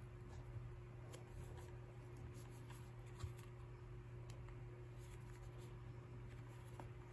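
Faint clicks and taps of smartphones being handled and picked up, with one sharper click a little after three seconds, over a steady low hum.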